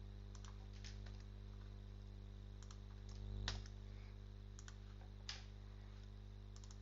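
Computer keyboard keystrokes: a few scattered, irregular key clicks as code is typed, over a faint steady electrical hum.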